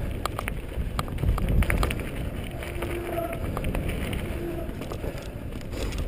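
Mountain bike rolling down a dirt singletrack: tyres on dirt and the bike's chain and frame rattling over bumps, with rumbling wind on the microphone. Two short squeaks in the middle, like the bike's squeaky brakes.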